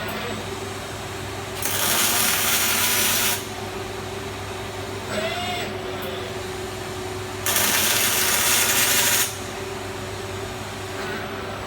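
Fronius CMT robotic welding arc on ERW steel tube: two short welds of under two seconds each, about six seconds apart, each a loud steady hiss. Between them runs a steady machine hum, with a brief rising whine about midway.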